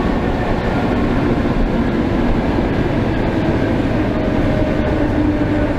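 Old electric commuter train running along the track, its wheel and rail noise coming in loud through a glassless vestibule window, with a faint steady whine beneath.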